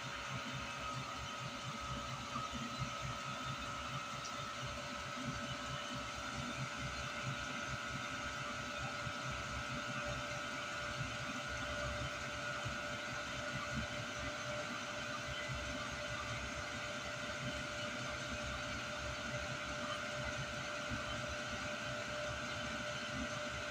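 Vevor 5 kW Chinese diesel air heater running just after a successful start, its blower fan whine rising slowly in pitch over a rough combustion rumble as the heater ramps up.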